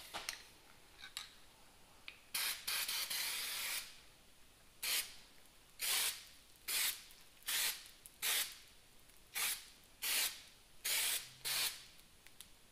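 Aerosol can of one-step primer spraying: one longer hiss of about a second and a half, then a string of short spurts about one a second.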